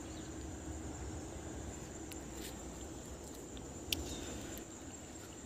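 Ambient outdoor sound: a steady high-pitched insect drone over a low rumble, with a few faint clicks, the sharpest about four seconds in.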